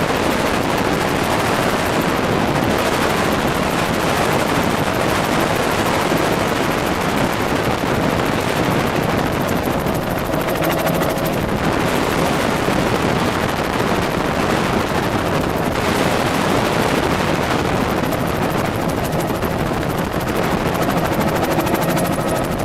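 Tour helicopter in flight: steady, loud rotor and engine noise with a fast, even chop from the blades.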